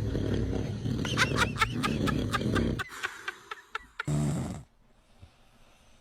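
A man snoring: a loud, rattling snore that cuts off about three seconds in, with a run of sharp clicks over it. A brief sound follows about a second later, then it goes quiet.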